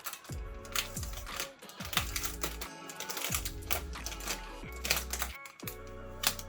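Background music with a beat and deep bass notes that fall in pitch, with quick light clicks and taps running through it.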